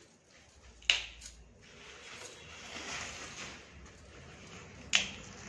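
Bunches of fresh leafy greens rustling as they are handled and sorted, with two sharp clicks, about a second in and near the end.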